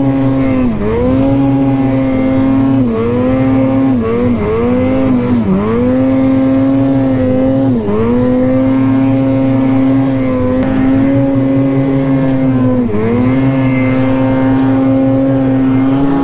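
Mountain snowmobile's two-stroke engine held at high revs as the sled ploughs through deep powder, with several quick throttle chops where the revs dip and climb straight back, then the revs drop right at the end.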